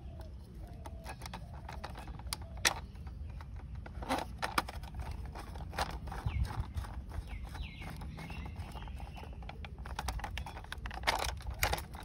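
Scattered clicks and taps of a small screwdriver and a hard plastic toy car body being handled while a screw is driven into the car's underside, with a cluster of clicks near the end as the car is turned over. A low steady rumble lies underneath.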